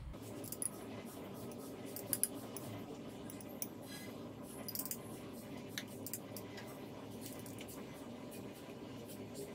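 Wooden chopsticks clicking and scraping against a stainless steel bowl and a plate while a wet minced garlic-and-chili topping is scooped out. The clicks are short and irregular, over a steady low hum.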